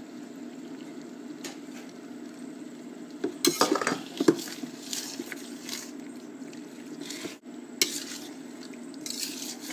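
A utensil stirring and scraping fettuccine through a creamy egg sauce in a frying pan, with irregular knocks and clinks against the pan. The busiest stretch is a little over a third of the way in.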